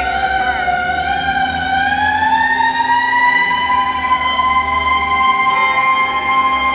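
A siren wailing, its pitch climbing slowly for about three seconds and then holding steady, over a low rumble that fades about five seconds in.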